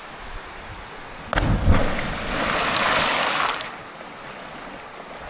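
A person hitting the pool feet-first after a roughly 58-foot jump off a waterfall. A sudden heavy smack comes about a second in, followed by a couple of seconds of splashing spray, all over the steady rush of falling water.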